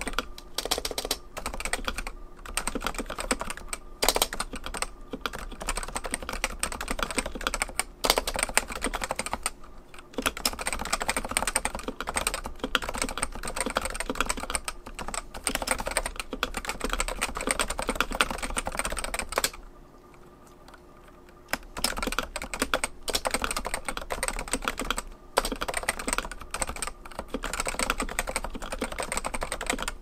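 Typing on a modded Realforce 87u keyboard with 55 g Topre electro-capacitive switches, Novatouch sliders and PBT keycaps: a fast, steady stream of keystrokes, with a pause of about two seconds around two-thirds of the way through.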